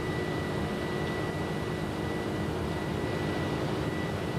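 Steady noise of a Boeing 747-400 jet airliner: an even roar with a thin, steady high whine over it.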